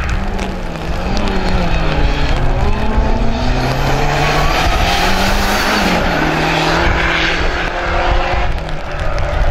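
Small race-prepared hatchback's engine revving hard through a slalom of cones. Its pitch rises and falls again and again as the driver lifts and gets back on the throttle, and the car passes and pulls away.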